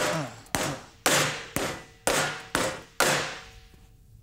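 A hammer striking a '66 Chevy pickup's steel front fender, knocking off thick old Bondo body filler: seven sharp blows, about two a second, each with a short metallic ring.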